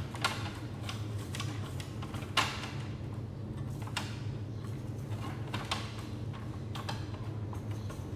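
Scattered light clicks and knocks of hands handling plastic parts and flat cables inside an opened Canon iR copier's scanner section, the sharpest about two seconds in, over a steady low hum.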